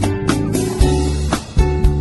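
Background music: guitar over a steady beat with bass.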